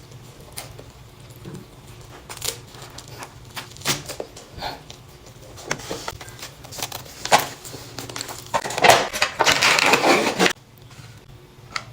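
Close-miked eating of pastries: bites and chewing with small wet clicks and crackles, then a dense, louder crackling for about two seconds near the end.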